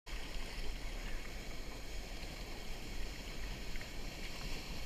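Whitewater churning and pouring over a concrete drop on an artificial whitewater course: a steady rush of water with a deep low rumble.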